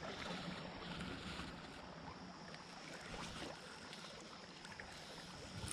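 Faint, steady rush of flowing creek water.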